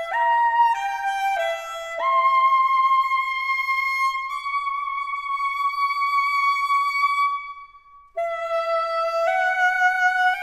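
Solo alto saxophone playing a slow movement. A few short notes step downward, then one long high note is held for about five seconds and fades away. After a brief gap a new phrase of rising notes begins.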